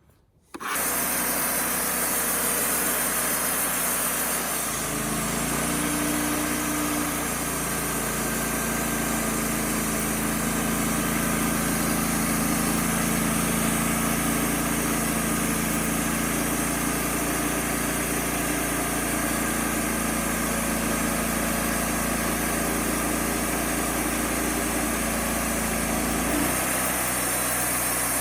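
Wood-Mizer LT35HD portable sawmill running steadily as it takes another board off a red oak log. A deeper steady drone joins about five seconds in and drops away near the end, as the band blade runs through the cut.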